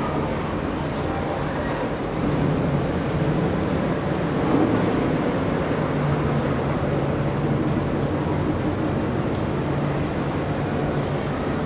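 A slow procession of Corvettes rolling past at parade pace, their V8 engines running at low revs in a steady stream of engine and traffic sound.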